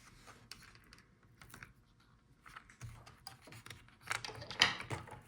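Faint, scattered small clicks and taps of hands and tools working on the opened laptop's internals near the battery, growing busier and louder near the end.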